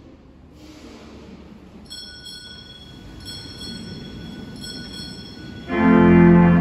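Quiet church ambience with a few faint high steady tones, then about five and a half seconds in a church organ comes in loud with a full sustained chord.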